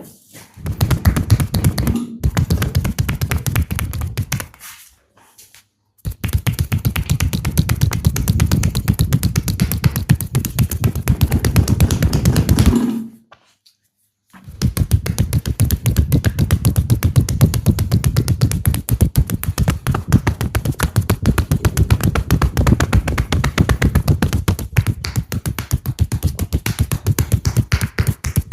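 Fast percussive hand-tapping massage: the masseur's hands slap and chop rapidly and evenly on the body in a dense run of sharp taps. There are three long stretches, broken by brief silences about five seconds in and again near the middle.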